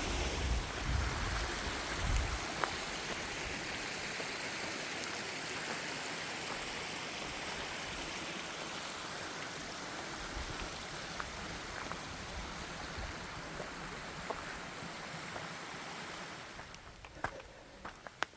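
Steady rushing water of a small mountain waterfall, fading away near the end.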